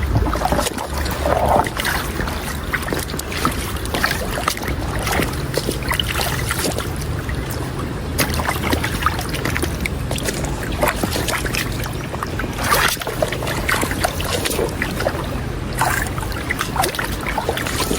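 Water splashing and sloshing in shallows and mud, with many irregular small clicks and knocks over a steady low rumble.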